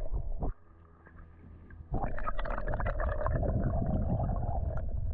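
Creek current heard through an underwater camera: a muffled low rumble with many small crackling ticks. It drops off suddenly about half a second in, then comes back just as suddenly about two seconds in.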